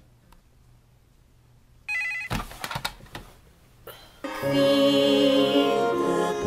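A telephone's electronic ringer trills briefly about two seconds in, followed by a clatter of clicks and knocks as the handset is handled. About four seconds in, loud music with long, wavering held notes begins.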